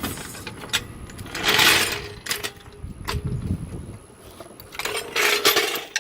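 Car jack being worked to lower the car: two short noisy rasping bursts, one about a second and a half in and one near the end, with scattered metal clicks and clinks between them.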